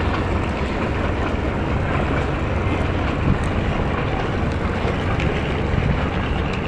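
Steady low drone of a passenger ferry's engines, with wind noise on the microphone over it.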